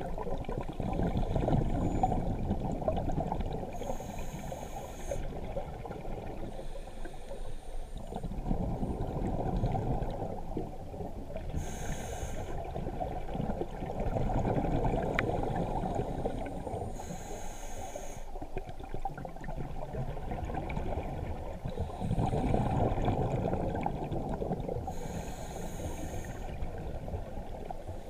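Scuba diver breathing through a regulator underwater: four short hisses of inhaled air several seconds apart, with the bubbly rumble of exhaled air swelling and fading between them.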